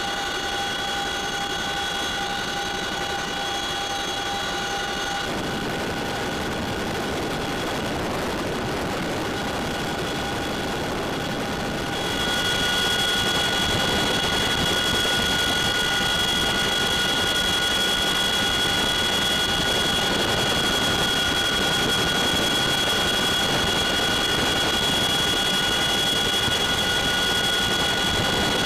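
Military helicopter cabin noise in flight: a steady rushing drone with several high, steady whining tones from the turbine engines and gearbox. The tones shift about five seconds in, and the sound gets louder about twelve seconds in.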